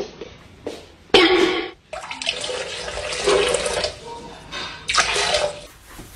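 Water splashing and running in uneven surges, loudest briefly about a second in and again near five seconds.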